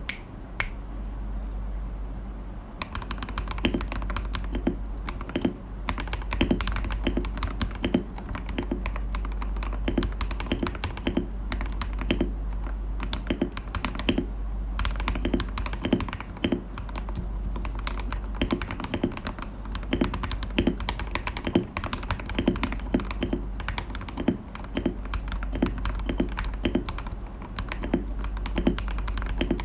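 Typing on a Royal Kludge RK G68 mechanical keyboard with linear Akko CS Radiant Red switches lubed with Krytox 205g0 and Akko ASA-profile keycaps: a steady run of key clacks, several a second, picking up about three seconds in.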